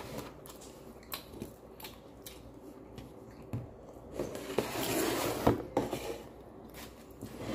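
Close-miked eating and table-handling sounds: chewing crisp deep-fried potato tacos, with small clicks of hands and plates. About four to six seconds in there is a rustle and two sharp clacks as a plastic tub of green salsa is moved across the table.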